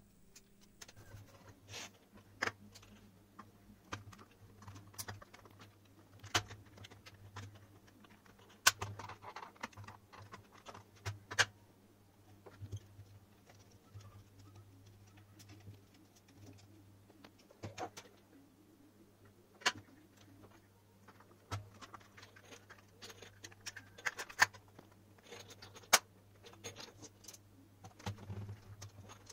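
Intermittent clicks, taps and light scrapes of a plastic torch housing being trimmed with a utility knife and then screwed back together, a few sharper knocks among them, over a steady low hum.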